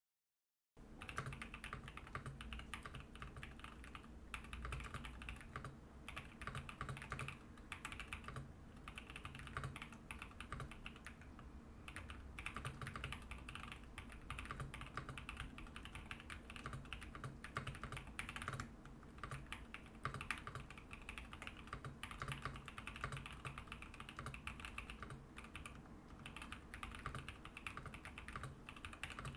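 Typing on a GMK67 mechanical keyboard with Badseed V2 tactile switches and PBT keycaps: a fast, continuous run of keystrokes that starts about a second in, broken by a few brief pauses.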